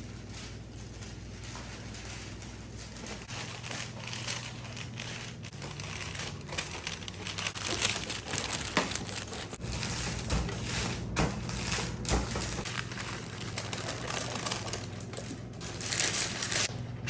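Plastic packaging crinkling and rustling as it is handled, with scattered clicks and knocks, over a low steady hum.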